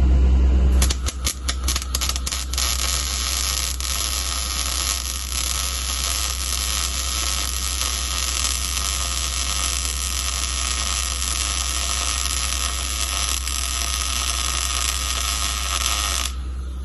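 Electric arc welding a bead: the arc stutters and catches about a second in, then runs as a steady hiss for about fifteen seconds and cuts off suddenly near the end. A low hum from the welding machine runs underneath.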